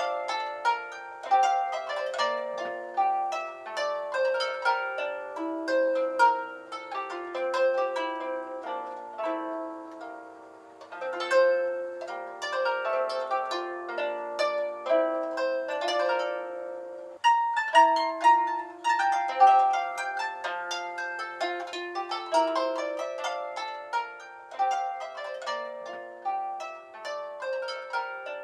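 Solo harp music: a flowing run of plucked notes, each ringing and dying away, with a brief break about seventeen seconds in.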